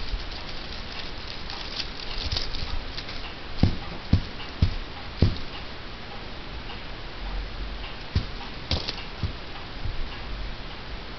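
Soft, irregular thumps and fur rustling as a long-haired kitten bumps and brushes against the camera microphone, a cluster of thumps about four seconds in and a few more later.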